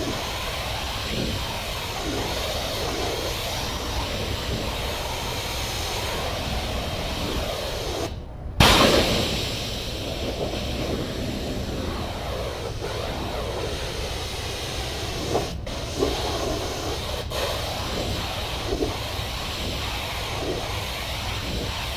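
Pressure washer running and spraying water: a steady hiss over a low engine drone. It cuts out briefly about eight seconds in and comes back louder.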